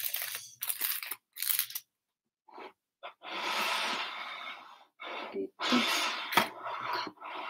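Aluminium foil crinkling and rustling in several separate bursts as foil packets are handled and opened, the longest burst about three seconds in.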